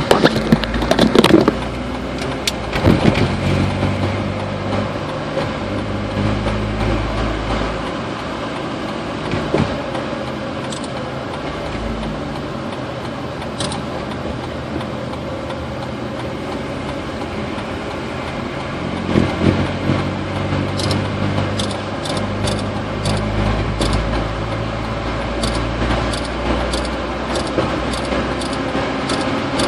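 Vehicle engine and road noise heard from inside the cabin while driving at steady speed, with a low engine hum. A few sharper knocks come in the first seconds, and in the last third a light, regular ticking a little under twice a second.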